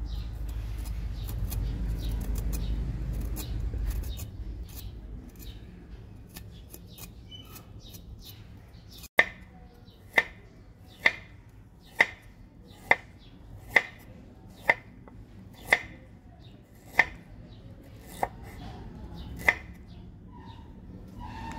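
A large chef's knife slicing fresh ginger root on a wooden cutting board: about a dozen sharp knocks, roughly one a second, beginning about nine seconds in. Before that, the knife edge scrapes the skin off the ginger with faint small ticks.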